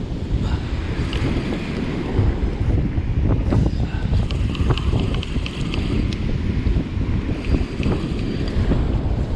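Wind buffeting the microphone in a heavy, uneven rumble, with surf breaking on the beach beneath it. A few light clicks come from the spinning reel being handled around the middle.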